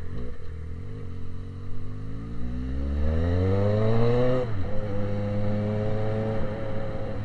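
Yamaha XJ6 inline-four motorcycle engine with a pipe-only exhaust, revving up steadily for about three seconds, then dropping suddenly and running on at a steady engine speed.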